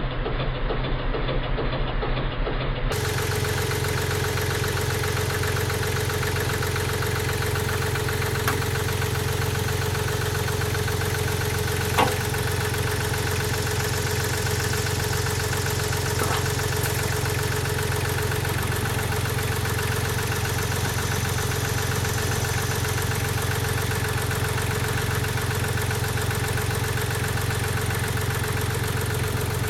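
An engine running steadily at idle, with a single sharp click about twelve seconds in.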